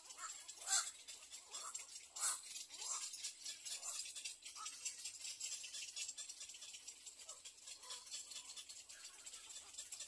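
Little egret chicks in the nest giving short hungry begging calls, one every second or so in the first half and more sparsely later, over a steady high hiss.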